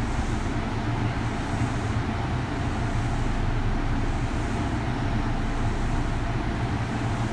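Steady running noise heard from inside a Kintetsu 3200 series motor car: a low, even rumble of wheels and running gear with a soft hiss recurring about every second and a half.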